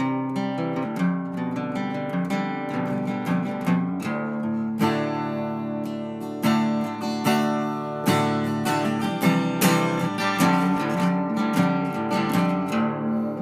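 Background music: acoustic guitar, strummed and picked.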